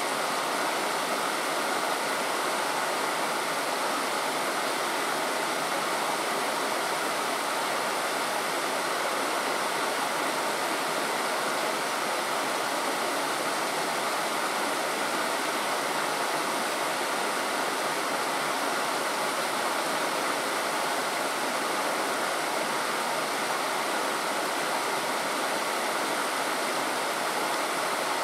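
Steady rush of flowing stream water, even and unchanging throughout.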